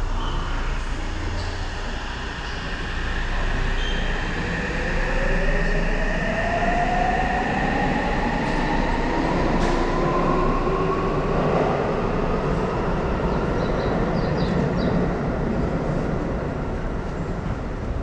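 Electric commuter train pulling out of the platform: its motors give a whine that rises steadily in pitch as it speeds up, over a steady rumble of the train moving.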